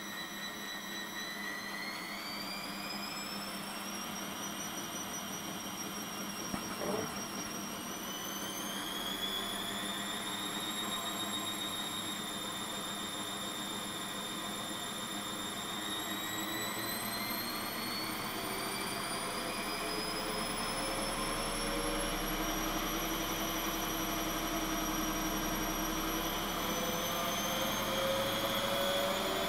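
Mid-90s Hanseatic front-loading washing machine, fully loaded, speeding up toward its spin: the motor whine rises in steps, a low drum rumble builds past the middle, and there is a single click about seven seconds in. It is running on freshly replaced dampers and holds steady without walking.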